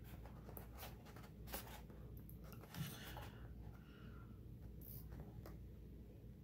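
Faint rustling and light taps of cardstock as a folded paper box is handled and pressed into shape, with a few short crinkles scattered through.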